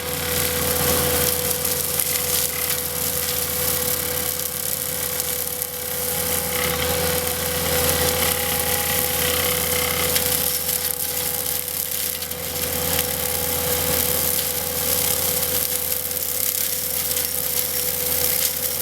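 Skid steer running with its hydraulic side-arm attachment at work: a continuous, rough mechanical rattle with a steady tone held through it.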